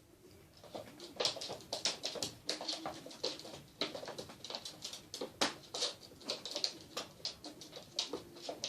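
A bird calling among a run of quick, irregular clicks.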